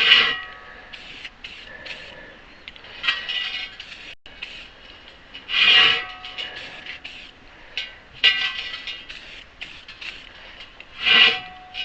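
Aerosol spray paint can spraying in short hissing bursts, about five of them a few seconds apart, as a wheel rim is given a coat of paint.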